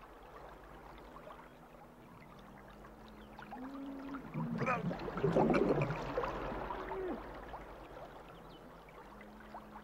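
Water bubbling and gurgling from a man held under the surface of a pool, swelling about four seconds in with a cluster of glugs and then fading away.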